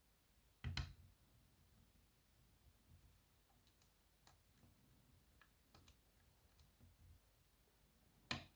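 Lock picking on a BKS 88 pin-tumbler cylinder: a hook pick and tension wrench click and tick faintly against the lock. Two sharper clicks come about a second in and near the end.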